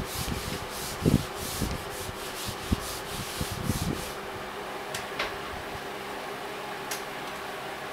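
Felt whiteboard eraser scrubbing back and forth across the board in quick, rough strokes, stopping about four seconds in.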